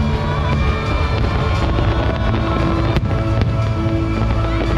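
Loud show music with sustained tones and strong bass, playing over a fireworks display; two sharp firework bangs land about three seconds in.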